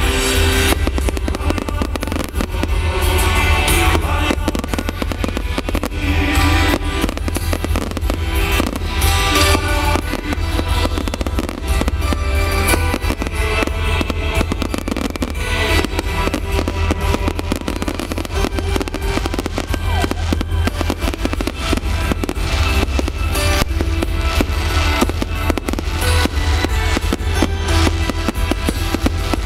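Fireworks display going off continuously, a dense run of bangs and crackles, over loud music.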